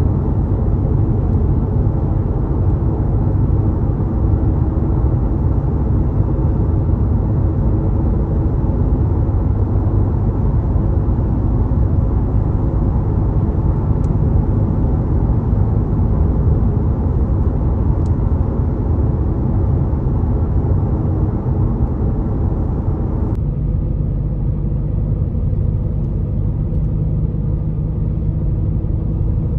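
Passenger train running: a steady, loud low rumble with a faint hum over it. The higher hiss drops away abruptly about 23 seconds in.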